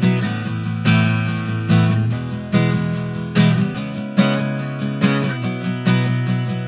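Steel-string acoustic guitar strumming chords in a steady rhythm, a strong strum a little under once a second with lighter strokes between. It is recorded close on an Aston Stealth dynamic microphone, whose voicing switches from V1 to V2 partway through.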